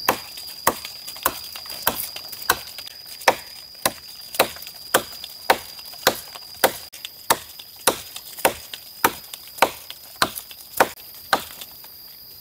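Dry, hard wood being chopped: sharp strikes almost twice a second in a steady rhythm.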